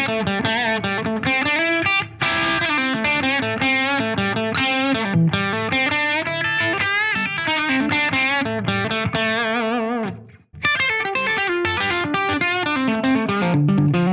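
Gibson SG Standard electric guitar played through a distorted amp: fast lead runs with string bends and vibrato, breaking off briefly about ten seconds in before the playing resumes.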